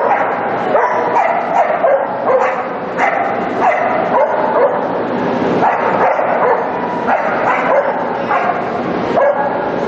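A dog barking and yipping repeatedly, short high barks coming about once or twice a second over steady background noise.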